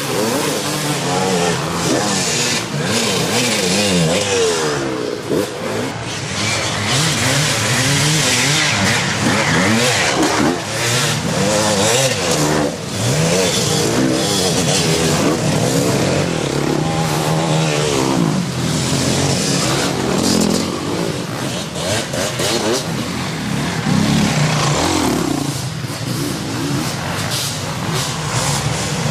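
Dirt bike engines revving hard under load on a hill climb, the pitch rising and falling over and over with throttle and gear changes. At times two bikes run at once.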